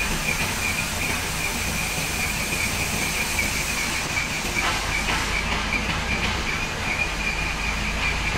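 Hydraulic pump of a truck-mounted crane whining steadily while the boom moves, over the low hum of the Isuzu KV100 truck's diesel engine running to power it.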